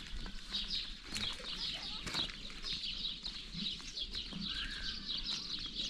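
Small birds chirping without pause, a short high falling chirp repeated about three times a second, with a few faint clicks among them.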